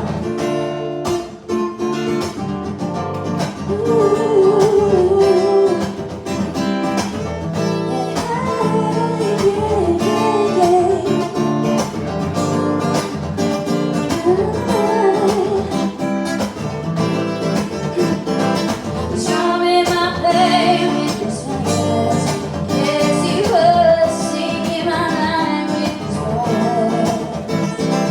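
A song with a strummed guitar and a voice singing over it.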